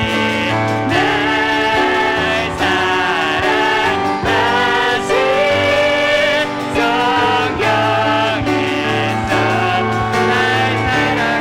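Worship team singing a praise song with piano accompaniment, voices held over sustained chords.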